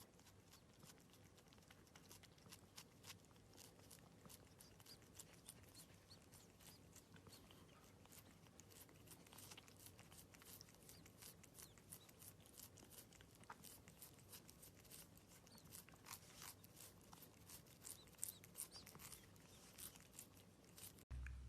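A cat chewing food: faint, irregular crunching clicks that come thicker and louder through the middle and later part.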